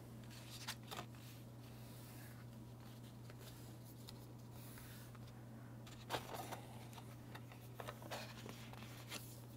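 Faint rustling and creasing of red cardstock being folded in half by hand, with soft paper noises about a second in and again around six and eight seconds, over a steady low hum.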